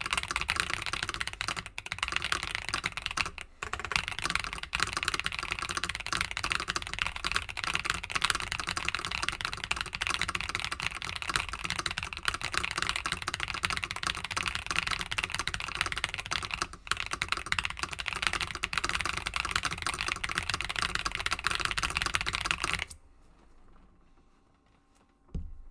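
Mechanical keyboard with tactile switches typed on very fast, around 220 words a minute, making a dense, unbroken patter of keystrokes that stops about 23 seconds in. A brief low thump comes just before the end.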